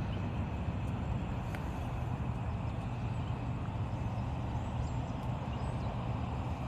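Steady low engine rumble of a vehicle or nearby traffic, unchanging throughout.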